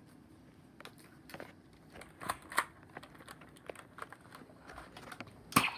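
Scattered plastic clicks and rattles from Nerf toy blasters being rummaged through and handled, with a louder burst of rustling and clatter near the end.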